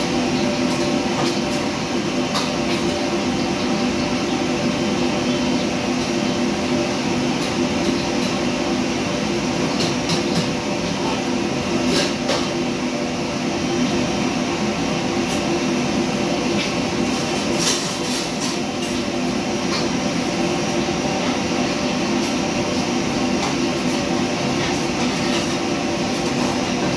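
Steady noise of commercial wok burners and the extractor hood fan, with scattered clinks of a metal ladle and spatula against a wok.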